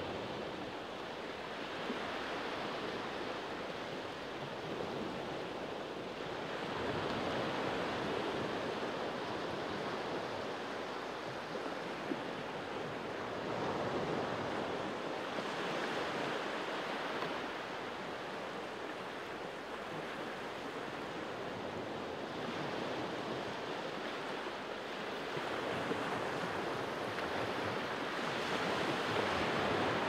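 Small sea waves washing onto a pebbly shore and over low rocks, the surf rising and falling every several seconds.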